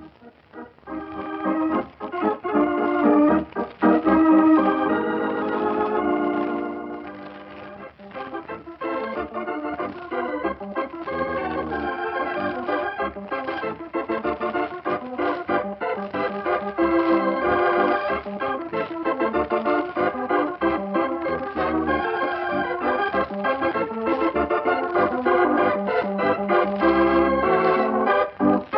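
Organ music closing the episode: sustained chords that swell, dip briefly about seven seconds in, then carry on steadily.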